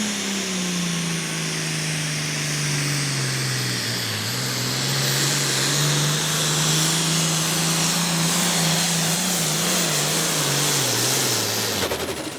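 Pro farm class pulling tractor's diesel engine running flat out under load while it drags the weight sled. Its pitch sinks slowly as the engine is pulled down, wavers near the end, and the sound cuts off about 12 seconds in.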